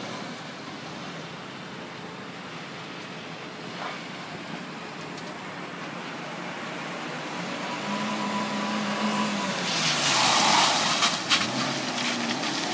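Dongben mini pickup truck driving around on pavement, its engine running with the note rising about eight seconds in. About ten seconds in it passes close, with a loud rush of tyre and road noise, and a few sharp clicks just after.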